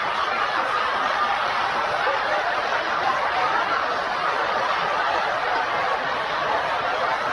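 A roomful of people laughing and chuckling together, a steady, dense sound of many voices laughing at once.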